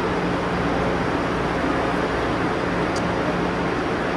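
Steady rushing noise with an even low hum from high-speed trains standing at a station platform, their ventilation and equipment running. A short high tick about three seconds in.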